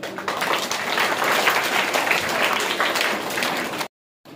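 An audience of many people clapping together, a dense continuous patter of hands that cuts off suddenly near the end.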